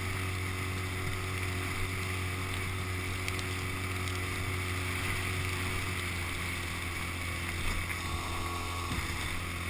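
Small outboard motor running steadily, pushing an inflatable dinghy through choppy water, with water rushing and splashing along the hull.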